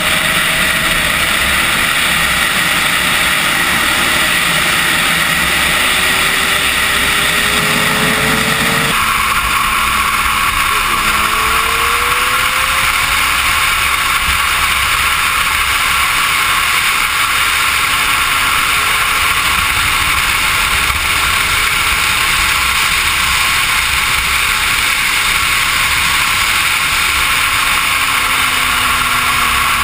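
Suzuki GSX-R sportbike inline-four engine at speed, nearly buried under heavy wind rushing over the action-camera microphone. The engine's pitch slowly rises and falls as the throttle changes, and the sound changes abruptly about nine seconds in.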